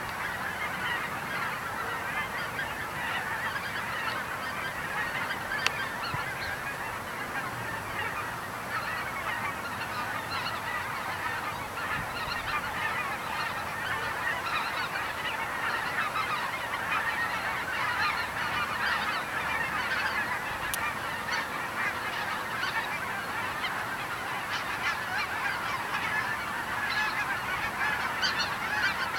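A large flock of geese flying over in skeins, many birds honking at once in a continuous, overlapping chorus.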